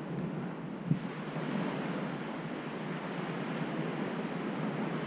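Ocean surf washing steadily onto the beach, with wind on the microphone. A single brief thump about a second in.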